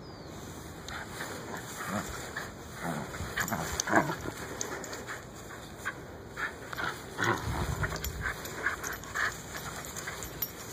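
A Wheaten / wire fox terrier mix growling in short, irregular bursts while tugging on a stuffed toy, the loudest burst about four seconds in.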